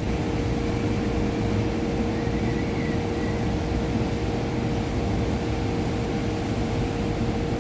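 Steady low rumble and droning hum with a constant mid-pitched tone, unbroken throughout.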